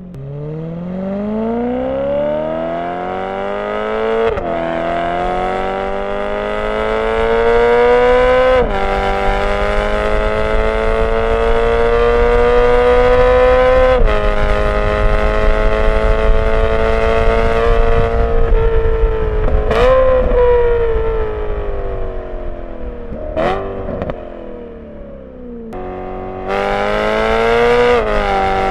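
BMW E92 M3's V8 through a Borla ATAK exhaust fitted with venturis, heard from a recorder mounted on the car while driving: it pulls up through the gears with upshifts about 4 and 9 seconds in, holds a steady cruise, gives two short throttle blips about two-thirds of the way through, then pulls again near the end.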